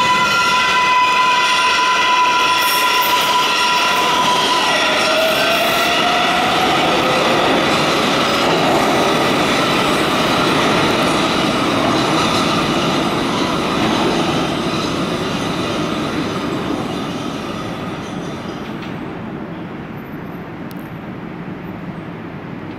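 An R142A subway train accelerating out of the station: its electric propulsion gives a whine that holds one pitch and then climbs in steps over the first several seconds, over heavy wheel-on-rail rumble and clatter. The sound fades steadily over the last several seconds as the train draws away into the tunnel.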